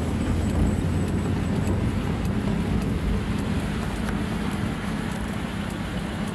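Car engine and tyre noise heard from inside the moving car's cabin: a steady low drone.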